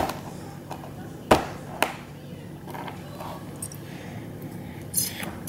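A few sharp knocks of small hands and a baby bottle on a plastic high-chair tray, the loudest about a second in, over a low steady hum.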